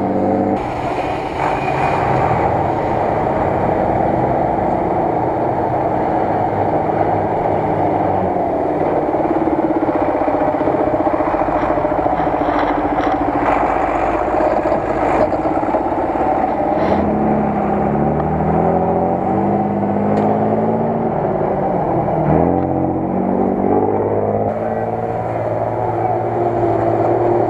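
Heavy off-road truck's engine working hard under load, its pitch rising and falling as it is revved several times in the second half.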